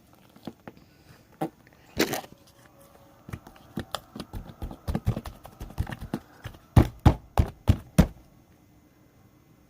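Slime being squeezed and worked by hand, giving a run of wet clicks and pops that grow thicker about three seconds in, with the loudest pops near the end before they stop.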